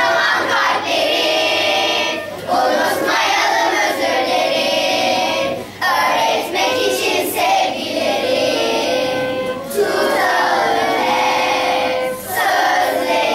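A group of children singing a song together with music, in sung phrases a few seconds long separated by short breaths.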